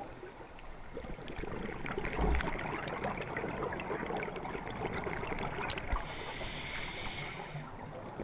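Scuba regulator breathing heard underwater: a crackling, gurgling stream of exhaled bubbles for several seconds, with a dull thump about two seconds in, then a steadier hiss near the end.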